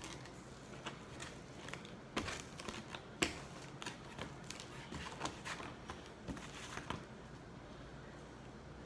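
Scattered small clicks, scrapes and crinkles of hands working slime out of a container, busiest for the first seven seconds or so and then quieter.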